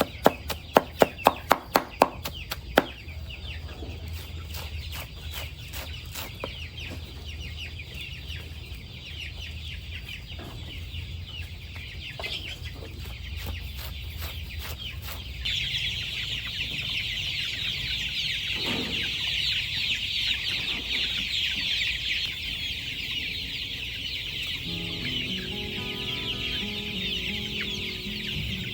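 Chickens clucking. A quick run of sharp taps, about five a second, comes in the first three seconds, and a dense high chirring grows loud about halfway through. Pitched clucking calls come near the end.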